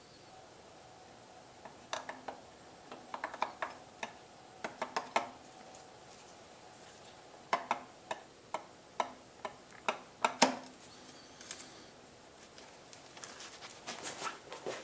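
Metal clicks, taps and clinks as a starter motor is seated onto a Honda CBR1000F Hurricane's crankcase: scattered taps in short clusters, with the loudest knock a little past the middle.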